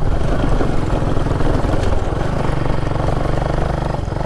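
Off-road motorcycle engine running steadily with an even, rapid firing pulse as the bike is ridden over rough stony ground.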